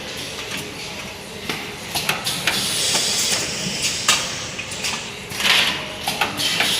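Paper cup making machines and an automatic cup packing machine running together: a steady mechanical clatter with sharp clicks and knocks and a couple of bursts of hiss.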